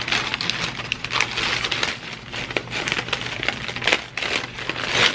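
White paper plant wrapping rustling and crinkling as it is handled and pulled open, with many small sharp crackles.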